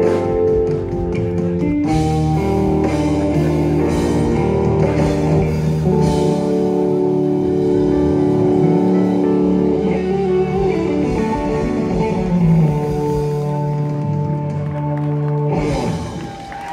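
Live blues music with acoustic guitar and a steady beat. The song ends about a second before the close.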